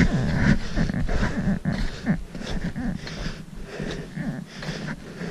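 Footsteps crunching irregularly on a packed snow trail, with breathing close to the microphone.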